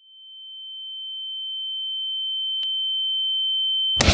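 A single steady high-pitched sine tone that swells in loudness for about four seconds, then cuts off suddenly at a sharp hit as a punch lands near the end.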